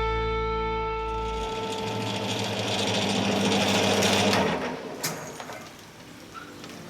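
Metal lathe running with a steady whine while taking a very light finishing pass on the shredder's drive shaft. It winds down about four and a half seconds in, followed by a single click.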